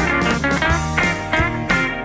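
Background rock music led by electric guitar, with bending lead notes over a steady drum beat.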